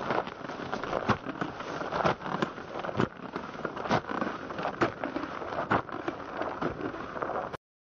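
Boots crunching on a gravel road in a steady walking rhythm, with a sharper crunch about once a second. The sound cuts off abruptly near the end.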